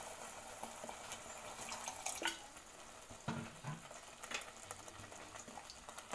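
A little water being poured into thick curry gravy in an enamel pot, with a faint hiss and a few light clicks and knocks.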